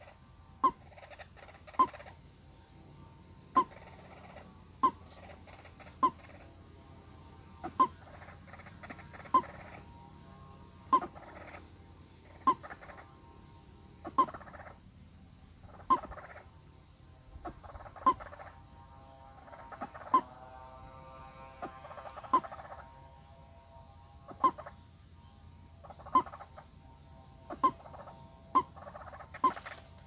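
White-breasted waterhen calling: a short, sharp note repeated every one to two seconds, with softer, longer notes between them.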